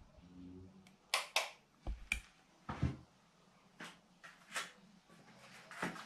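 Scattered sharp clicks and soft thumps: the switch on a power strip being clicked and the setup handled, with soft footsteps on a wooden floor. A faint short hum comes in the first second.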